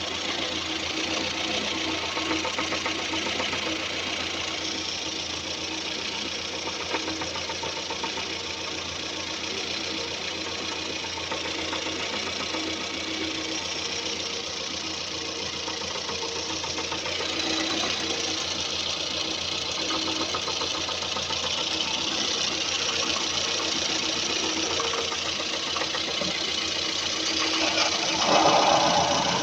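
Car engine idling with a steady rapid ticking knock from the top end, the camshaft knock that the video sets out to cure. A brief louder swell comes about a second before the end.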